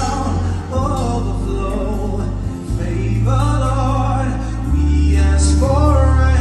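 Male gospel singing, performed live, over an instrumental accompaniment of long-held low bass notes that change every two seconds or so. The voice comes in short sung phrases with brief gaps between them: about a second in, around three seconds in, and near the end.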